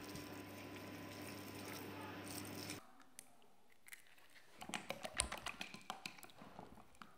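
Chopsticks whisking egg yolks in a ceramic bowl: a quick, uneven run of sharp clicks as the sticks strike the bowl, starting about halfway through. Before that there is only a faint steady hiss.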